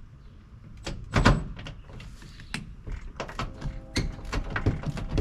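Irregular clunks, knocks and clicks of tools and metal parts being handled while a seat is taken out of an old GMC pickup's cab, the loudest clunk about a second in.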